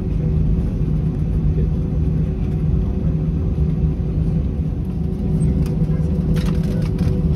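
Cabin noise of an Airbus A320-232 taxiing, its IAE V2500 engines running at idle: a steady low rumble with a few steady tones over it. A few short clicks near the end.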